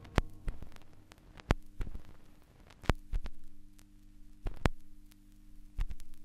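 Outro soundtrack: pairs of sharp clicks, one pair about every second and a half, in a slow heartbeat-like rhythm over a low steady hum.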